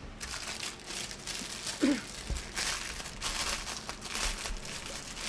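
Packaging crinkling and rustling in irregular bursts as it is handled and unwrapped.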